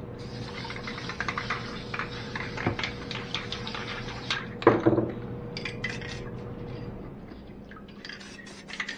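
Clinks and knocks of hard objects with water sounds during hydro dipping of a rifle stock, with one louder knock about five seconds in and a faint steady hum underneath.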